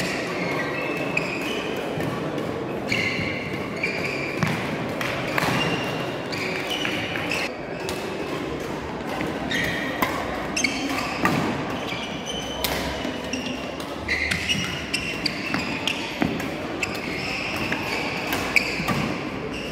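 Badminton play in a large sports hall: sharp, irregular racket strikes on the shuttlecock and short high squeaks of shoes on the court floor, over a steady background murmur of voices.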